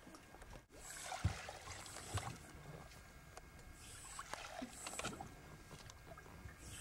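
Paddle strokes in water: the blade dipping and pulling with splashes and drips, a stroke every second or two.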